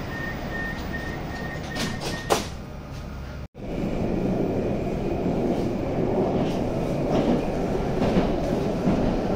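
Moscow 2020 metro train: the door-closing warning beeps in a steady pulsing tone, then the doors shut with a loud knock about two seconds in. After a short break the car is running, a steady rumble with wheel clatter and rattles.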